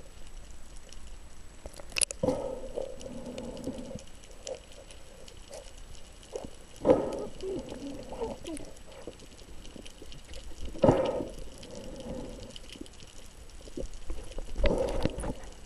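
Underwater water sounds: a gurgling, bubbling rush about every four seconds, with a faint steady hiss between.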